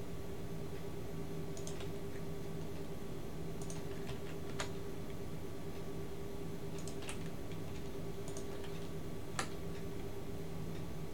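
Scattered clicks of a computer keyboard and mouse, one or two every couple of seconds, over a steady low hum.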